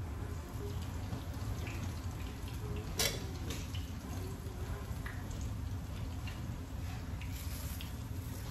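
Quesadillas sizzling in a frying pan over a gas burner, an even hiss with scattered small crackles over a low steady hum. A metal spatula clacks sharply against the stove about three seconds in.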